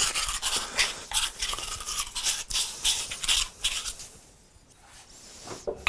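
Scratchy scrubbing or scraping strokes worked back and forth by hand, about two to three a second, stopping about four seconds in.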